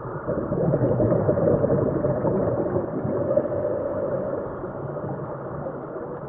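Muffled underwater rumble picked up through the camera housing. It swells about half a second in and eases off after about four seconds, with a faint high tone sliding downward around the middle.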